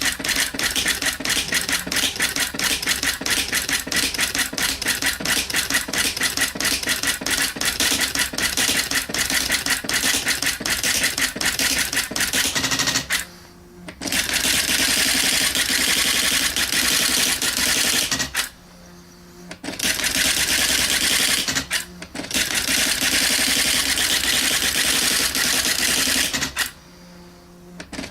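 Panasonic KX-R210 electronic daisy-wheel typewriter printing its built-in demonstration text on its own: a rapid, continuous clatter of the print hammer striking characters. It stops briefly four times, leaving only a faint motor hum in the pauses.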